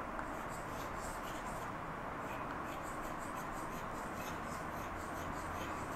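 Chalk writing on a blackboard: faint, short scratching strokes at an uneven pace, over a steady background hiss.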